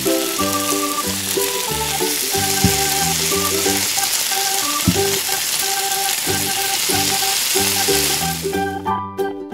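Breaded chicken drumsticks deep-frying in a tiny wok of bubbling oil: a dense, steady sizzle that cuts off suddenly near the end.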